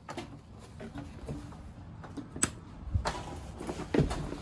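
Scattered clicks, knocks and soft thumps of someone coming in at the front door and moving about the entryway, with one sharp click about two and a half seconds in.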